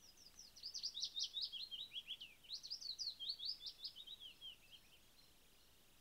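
A songbird singing: two rapid phrases of short, quickly falling high notes, each about two seconds long, the second phrase slowing and dropping lower before it ends about five seconds in.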